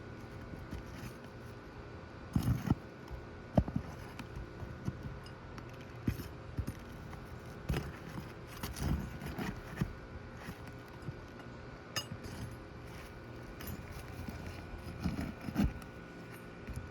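Hand tools scraping and clinking against asphalt roof shingles in short, irregular strokes as the shingles are worked loose to remove a wind-damaged one. The sharpest knocks come a few seconds in.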